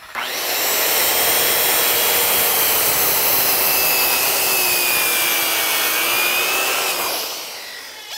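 Corded DeWALT circular saw cutting through a cedar deck post: a loud, steady motor whine with the blade's rasp through the wood, fading away near the end.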